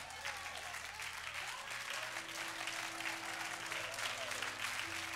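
Congregation applauding, many hands clapping at once, with scattered voices calling out; a held organ-like note comes in about two seconds in.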